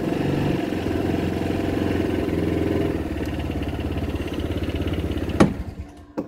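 Royal Alloy TG300S scooter's single-cylinder four-stroke engine idling steadily, then cutting out suddenly with a click about five and a half seconds in; another click follows near the end.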